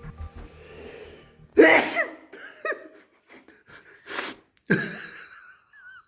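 A person sneezing loudly, more than once, the first sneeze the loudest.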